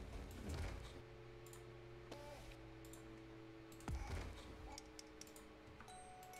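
Computer mouse clicks and scroll-wheel ticks with keyboard taps, faint over a low steady hum, with two soft thumps near the start and about four seconds in.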